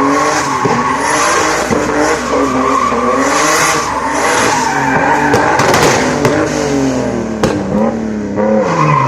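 Turbocharged BMW E30 doing donuts: the engine revs rise and fall again and again while the rear tyres squeal and skid, with a few sharp cracks about two-thirds of the way through.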